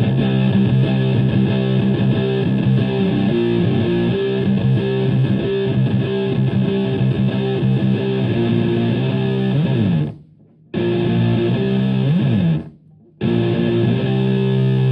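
Electric guitar played through a germanium three-transistor fuzz pedal built on the Tone Bender MKII, into a Marshall Plexi amp: distorted riffing with a thick, sustained tone. Twice, about ten and thirteen seconds in, a sliding note is cut off into a short silence before the playing resumes, ending on a held chord.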